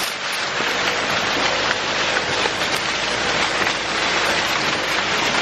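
Dry corn stalks and leaves rustling and cracking against a golf cart as it drives through a standing corn field: a dense, steady rustle with scattered snaps.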